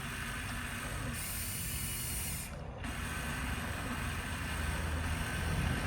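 Electric motors and gearboxes of a Huina RC construction model running, a steady mechanical whir with a ratchety grind and a hiss that drops out briefly about two and a half seconds in.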